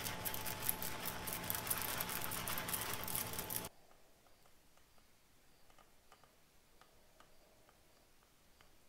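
Coffee beans poured from a bag into an epoxy mold, a dense rattle of many small clicks as the beans land on each other. It cuts off abruptly a little over a third of the way in, leaving only faint scattered ticks.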